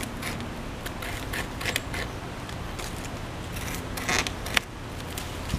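North American beaver gnawing through a thick poplar limb, its incisors scraping and crunching the wood in irregular bites, with louder crunches about four seconds in.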